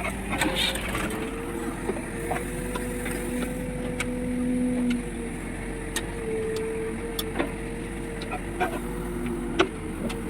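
Case backhoe loader's diesel engine running under work, its pitch stepping up and down a little, with scattered sharp clicks and knocks. The loudest knock comes near the end.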